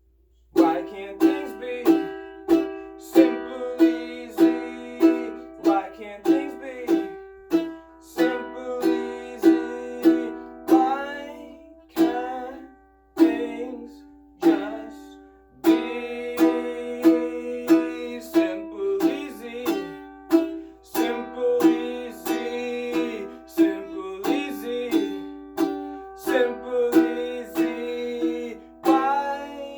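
Makala ukulele with mahogany back and agathis top, strummed in chords in a steady rhythm of about two strums a second, starting about half a second in after a brief pause.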